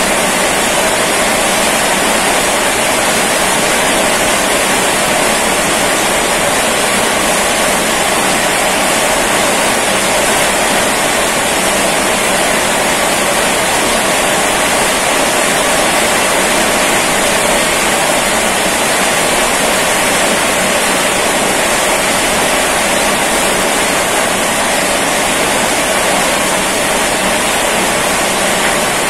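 Rain falling steadily at night, an even, unbroken hiss with no separate drops standing out.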